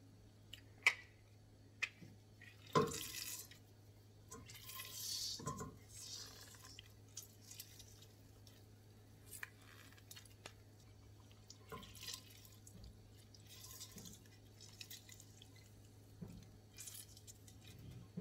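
Lemon squeezed in a plastic hand-held citrus press: a few sharp clicks from the press in the first seconds, then juice squirting and dripping into a pot of cooked blueberries, with scattered faint ticks afterwards. A faint low hum runs underneath.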